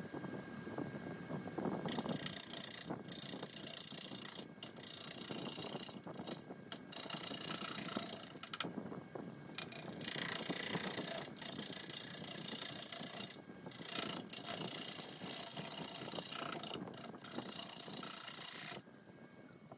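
Bowl gouge cutting a maple burl with epoxy-filled voids as it spins on a wood lathe, in several hissing passes of a few seconds each with short pauses between. The lathe runs throughout, and the cuts begin about two seconds in and stop just before the end.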